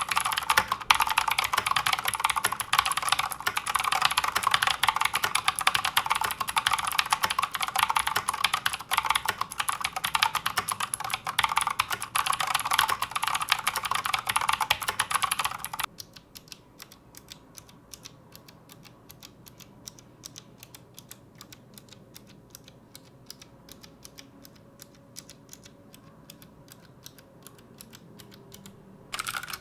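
Rapid, continuous typing on a mechanical keyboard with clicky blue switches, a dense stream of sharp key clicks. About halfway through the clicking drops abruptly much quieter and continues as fast, lighter clicks, then turns loud again just before the end.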